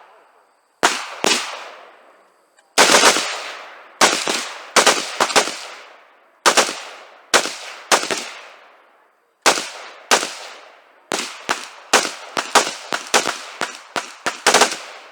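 Gunshots fired in quick succession, about two dozen in irregular strings, the fastest several a second, each shot trailing off in a short echo.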